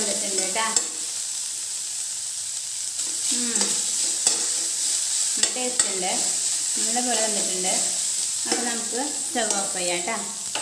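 Food sizzling as it fries in oil in a pan, with a steady hiss and occasional clicks as it is stirred.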